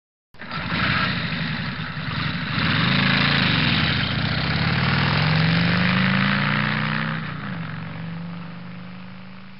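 An engine starts up suddenly a moment in and runs with its pitch rising and falling as it is revved. It gets louder about two and a half seconds in, then eases off toward the end.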